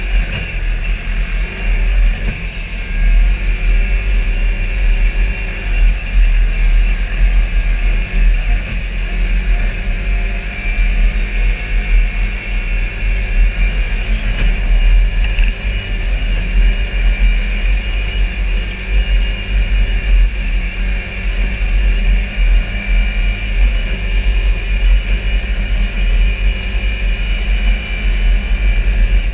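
Can-Am Commander side-by-side UTV driving steadily, heard from the driver's seat: engine and drivetrain running under a heavy low rumble, with no letting up.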